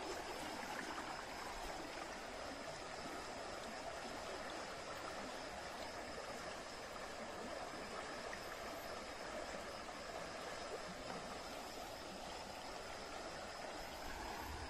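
Shallow stream running over stones: a steady rush of flowing water.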